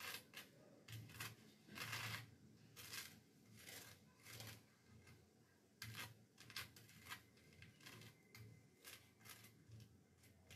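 Table knife scraping across a slice of bread in short, irregular strokes, a quiet dry rasp with each pass, about one to two a second.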